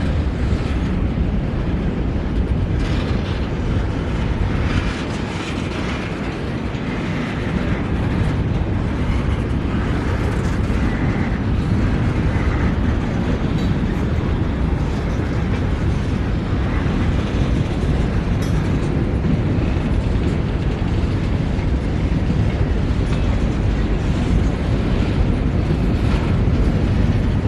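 Train rolling past: a steady rumble of wheels on the rails, with faint scattered clicks.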